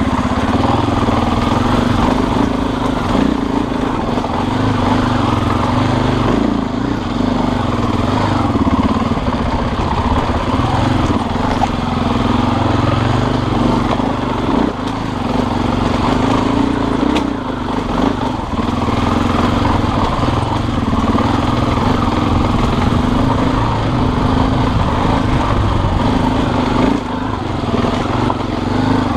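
Motorcycle engine running steadily, easing off briefly a few times.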